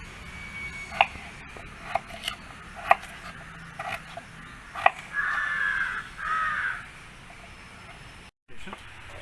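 Crow cawing twice, two harsh calls of under a second each about five seconds in, after a handful of sharp, irregular knocks of a knife cutting potato on a board.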